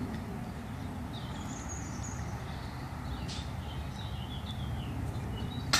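Birds chirping over a steady low outdoor background, then a single sharp clank just before the end as a putted disc strikes the disc golf basket's metal chains.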